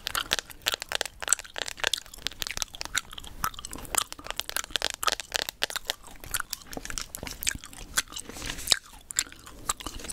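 Chewing gum close to the microphone: quick, irregular wet smacks and clicks.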